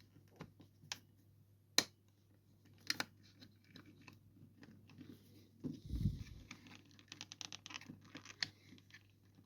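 Small plastic clicks and scraping from a Garmin GPSmap 60CSx handheld GPS's case and internal plastic clip as they are wiggled and prised apart. Sharp clicks come about one, two and three seconds in, a dull thump just before six seconds, then a quick run of small ticks.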